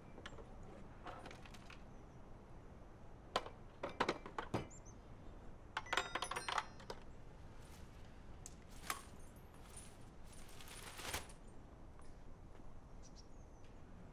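Scattered clinks and rattles of small hard objects such as dishes and glassware being picked up and set down, coming in short clusters, the busiest about six seconds in with a few ringing notes.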